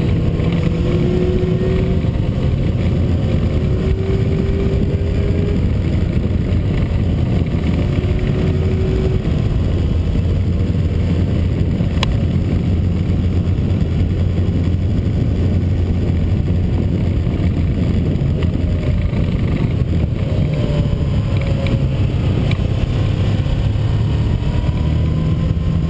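Motorcycles passing along a road, their engines rising and falling in pitch, over a steady low rumble. A sharp click about twelve seconds in.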